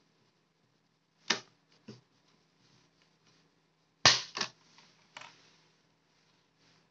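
Sharp plastic clicks and snaps as a plastic opening pick pries an Amazon Kindle's front bezel loose, its clips letting go: two clicks a little after a second in, the loudest pair about four seconds in, and one more about a second after that.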